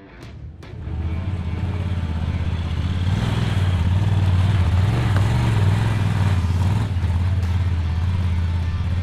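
Engine of a Honda side-by-side UTV running as it crawls over rocks: a low, steady drone that swells up in the first second.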